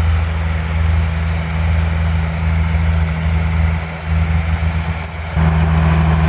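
Engine of a potato harvesting machine (a crossover digger) running steadily in the field, a low even hum. About five seconds in the sound changes abruptly to a slightly different, steadier hum.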